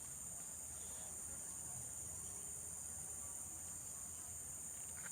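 Steady, high-pitched insect chorus, a continuous buzzing drone from crickets or similar insects.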